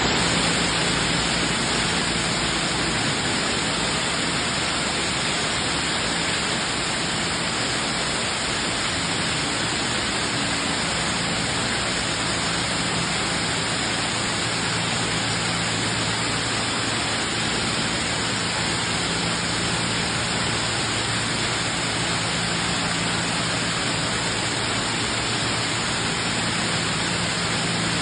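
Heavy rain falling in a steady, unbroken wash, with a faint low hum that comes and goes underneath.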